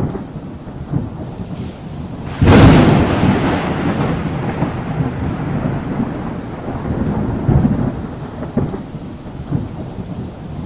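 Thunderstorm with rain: continuous rumbling thunder, then a sharp thunderclap about two and a half seconds in that rolls away slowly over the following seconds.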